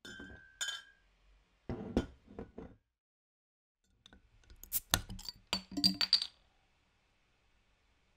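Glass beer bottles and metal crown caps clinking and clattering on a hard surface: a few ringing clinks at the start and knocks about two seconds in, a pause, then a quick run of sharp clinks and rattles that is the loudest part.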